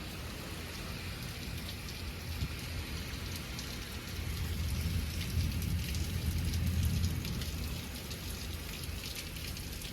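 Heavy rain falling steadily. A low roll of thunder swells from about four seconds in and dies away by about eight seconds.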